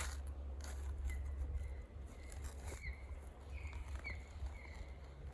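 A bird calling in short chirps, repeated several times about every half second to a second. Under it are a low rumble, heaviest in the first two seconds, and a few soft knocks.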